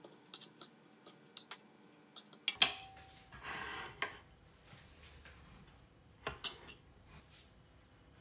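A ceramic plate and omelette slices handled on a plastic cutting board: light clicks and taps, a sharp knock of the plate with a brief ring a few seconds in, then a short scrape, and two more taps later.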